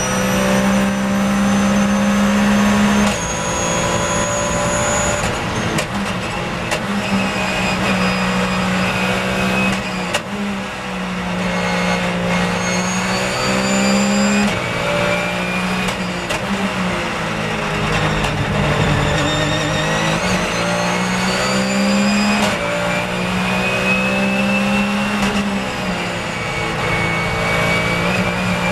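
Porsche 911 GT3 Cup's flat-six racing engine heard from inside the cockpit at full throttle on a flying lap. The pitch climbs and drops back in steps at each upshift. About ten seconds in, and again just past halfway, it falls as the car brakes and downshifts for corners, then climbs again.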